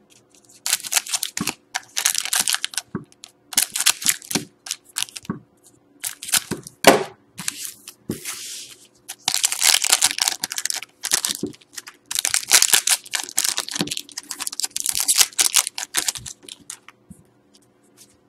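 Shiny foil wrappers of 2012-13 Panini Certified hockey card packs crinkling and tearing as the packs are cut and pulled open, in repeated bursts of rustling.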